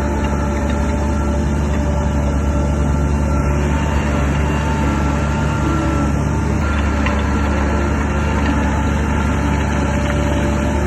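Diesel engine of a Shantui DH17 bulldozer running steadily at a constant pace, with a deep, even hum.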